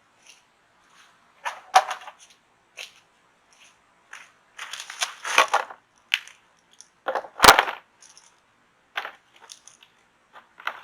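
Irregular rustling and crackling as sweet potatoes and dry soil are handled and gathered by hand, with scattered knocks and one sharp knock about seven and a half seconds in.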